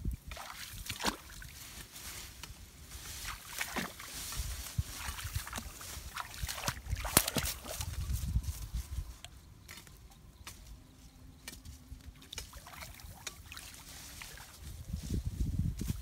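Legs wading through shallow muddy paddy water, sloshing in uneven surges, with scattered rustles and crackles of grass and leafy branches being pulled and handled.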